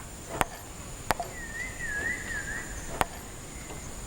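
Four sharp, separate clicks spread about a second apart. Between them comes a faint warbling whistle, over a steady high-pitched whine.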